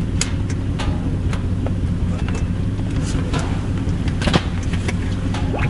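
A motor drones steadily and evenly, with scattered short clicks and knocks over it.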